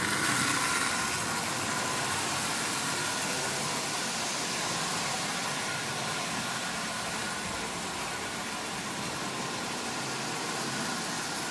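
Marx M10005 tin-litho toy locomotive running steadily around the track: the brushed electric motor whirring and the wheels rolling on the rails. It is running smoothly after its motor was lubricated and the brushes cleaned.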